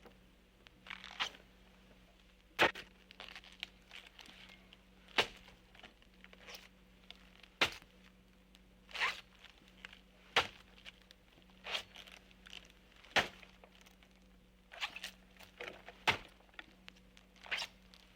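A slow, regular sound effect: a sharp knock about every two and a half seconds, with softer scraping and rustling sounds between the knocks, over a faint steady hum.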